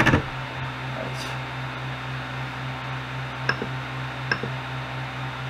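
Powered-on Ender 3 Pro 3D printer humming steadily, with two sharp clicks about three and a half and four and a quarter seconds in from its control knob being worked.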